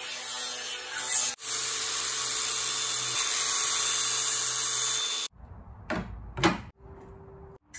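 DeWalt cordless angle grinder cutting steel plate, a steady grinding for about five seconds with a short break a little over a second in, then it cuts off suddenly. A couple of quieter knocks follow as the steel piece is handled.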